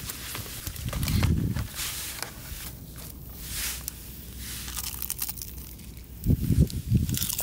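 Close crunching and crinkling handling noises, coming in short bursts, with a couple of low thuds about a second in and again near the end.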